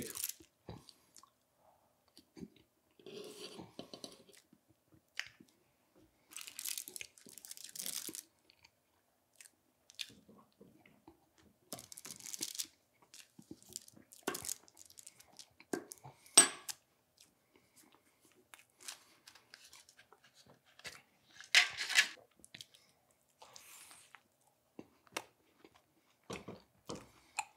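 A person eating dessert close to the microphone: scattered crunches, chewing and rustles every few seconds, with a sharp click about sixteen seconds in.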